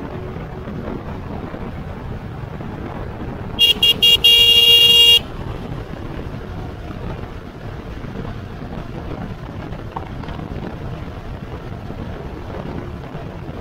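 Wind on the microphone and riding noise from a moving electric bike, with a loud electric horn sounding about three and a half seconds in: three quick beeps, then one held toot of about a second that cuts off sharply.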